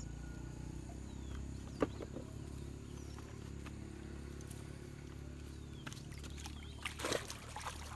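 A steady low drone like a distant engine, with a sharp click about two seconds in and a brief rush of noise about seven seconds in.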